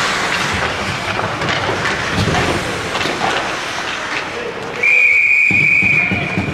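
Ice hockey referee's whistle: one long, steady, high blast starting about five seconds in, stopping play. Before it there is rink noise with scattered knocks.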